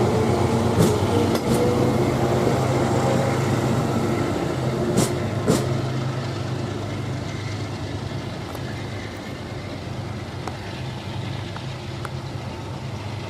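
Diesel train running past with a steady engine hum and a few sharp clacks, the sound slowly fading as it moves away.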